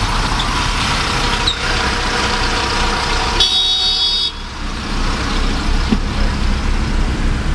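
Cabin sound of a Lamborghini Huracán's V10 running at low speed in traffic, with a steady low rumble and road noise. About three and a half seconds in, a high-pitched vehicle horn sounds for about a second.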